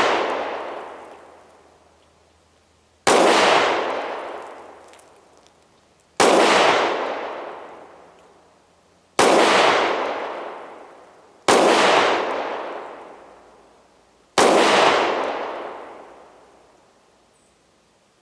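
Kel-Tec PR-57 pistol in 5.7×28mm firing five single shots in slow, deliberate succession, about one every three seconds, each shot followed by a long fading echo.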